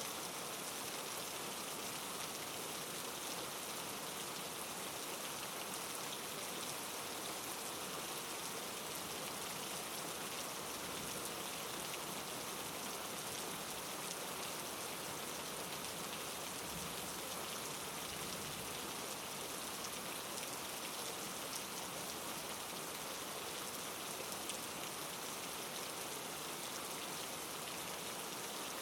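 Steady rain falling on a surface: an even, unbroken hiss.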